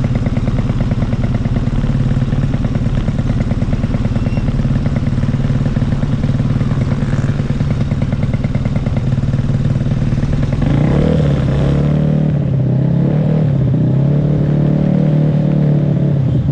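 Modified Vespa Matic racing scooter's engine idling with a fast, even pulse. From about ten seconds in it is revved repeatedly, its pitch rising and falling.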